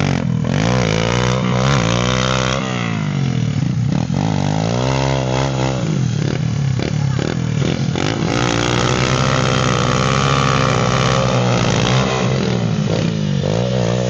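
Small pit-bike engines revving up and falling back again and again, held high for a few seconds past the middle, as the bikes' rear wheels spin and dig into loose sand.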